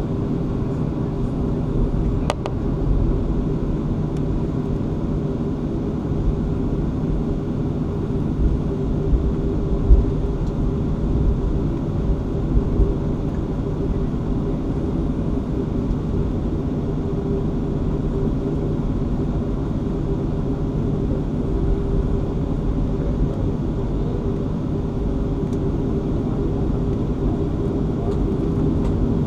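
Boeing 737-500's CFM56 jet engines running at taxi power, heard inside the cabin: a steady hum over a low rumble as the airliner taxis. A brief click about two seconds in.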